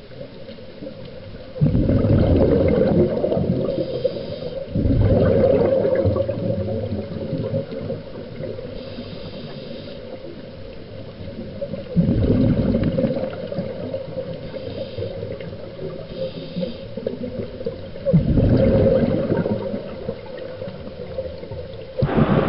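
Wind buffeting the microphone together with water noise, a rough rushing sound that jumps louder abruptly several times and dies back between.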